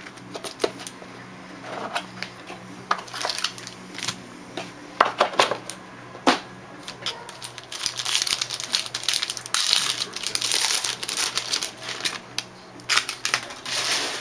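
Trading cards and their packaging being handled: scattered sharp clicks and taps, then longer stretches of rustling and crinkling.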